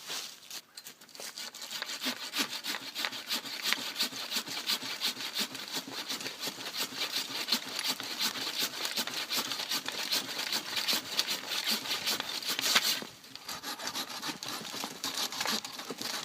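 A saw cutting through a thick grapevine stem with quick, steady back-and-forth strokes. It pauses briefly about 13 seconds in, then carries on.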